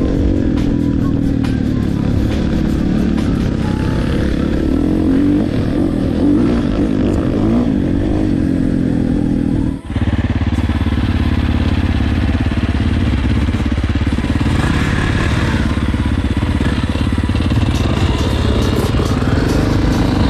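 Dirt bike engines running on the move, their pitch rising and falling with the throttle. The sound drops out briefly about ten seconds in, then the engines carry on steadily.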